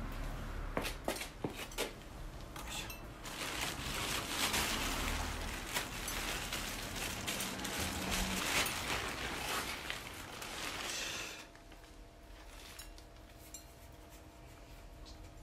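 Plastic bag rustling and crinkling as something is pulled out of it by hand, after a few sharp knocks in the first two seconds. About eleven seconds in it stops, leaving a quieter room with a faint steady hum.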